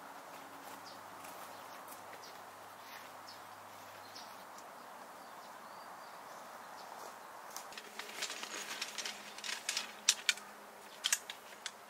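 Steady faint outdoor background hiss, then from about two-thirds in a run of sharp clicks and knocks, loudest near the end, from the frame poles of a folding camp cot being handled and fitted together.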